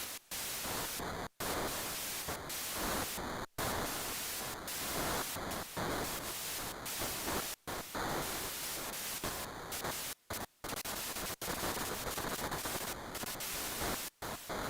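Harsh static-like noise from a modular synthesizer patch, broken several times by sudden brief silences at irregular moments.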